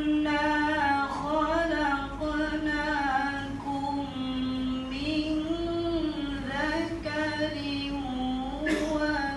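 Melodic Quran recitation (tilawa) in Arabic by a single voice: long held notes that slide between pitches and waver in ornamented runs, broken by short pauses for breath.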